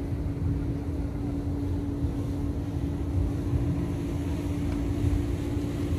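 A motorboat engine drones steadily at one pitch out on the water, over an uneven low rumble of wind on the microphone.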